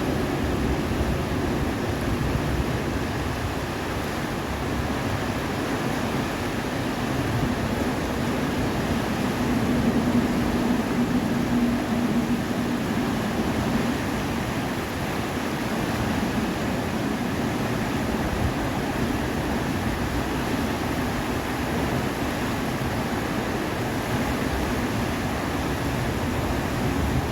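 A river swollen by flash flooding, its water rushing past in a steady, unbroken noise.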